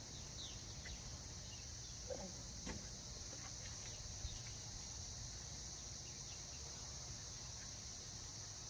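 Steady, high-pitched chirring of an insect chorus, with a few brief bird chirps near the start and a faint knock or two about halfway.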